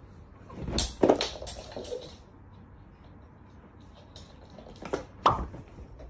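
Several knocks and thumps: a quick cluster about a second in, then two sharp knocks near the end.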